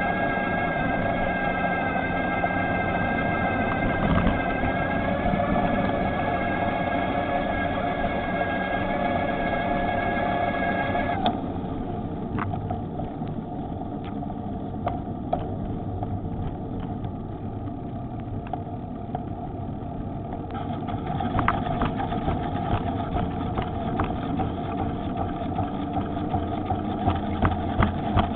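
Electric bike's motor whining steadily over wind and road rumble, cutting off suddenly about eleven seconds in. After that come wind and road noise with scattered clicks and knocks, growing louder again near the end.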